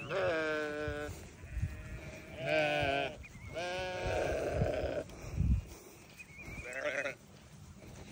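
Sheep bleating, four wavering calls one after another, the last about seven seconds in.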